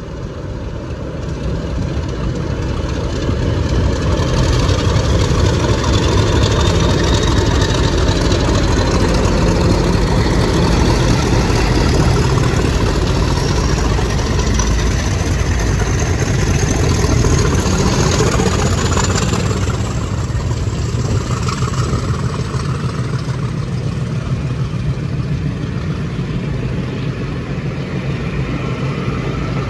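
Class 50 diesel-electric locomotive 50008, with a second diesel behind it, passing close, its English Electric 16-cylinder engine running loud and steady with a thin high whine rising in pitch. After about 20 seconds the engine noise eases into the run of coaches' wheels on the rails.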